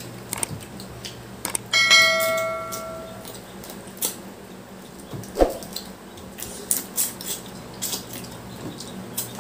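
Eating a seafood boil: scattered short clicks and cracks of shells being handled and picked apart. About two seconds in there is a single clear bell-like ring that fades over a second and a half.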